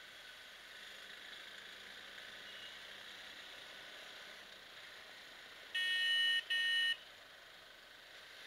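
Two short honks of a vehicle horn, one right after the other, about six seconds in, over a faint steady hiss of riding.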